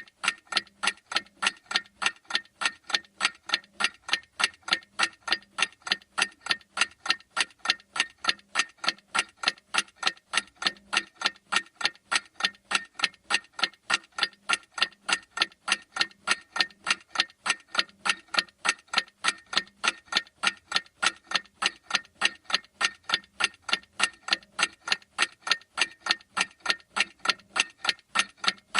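Clock-style ticking sound effect of a countdown timer: a steady, even run of sharp ticks at a quick, unchanging pace.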